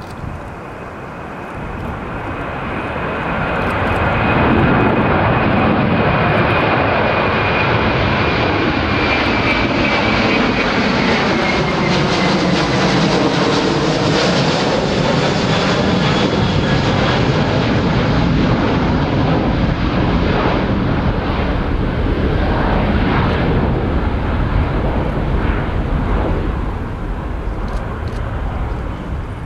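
Twin-engine Airbus A330 jet airliner climbing out after takeoff and passing overhead. The jet engine noise builds over the first few seconds and stays loud through the pass, with a high whine that slides slowly down in pitch and a whooshing that sweeps as the aircraft goes over. It eases off slightly near the end as the plane climbs away.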